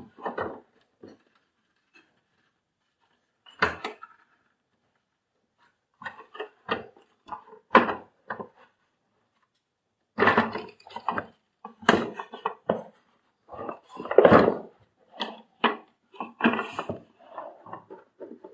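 Plastic vacuum-cleaner parts and small tools being handled and fitted together: irregular clicks, knocks and clinks, sparse at first and coming thick and fast from about ten seconds in.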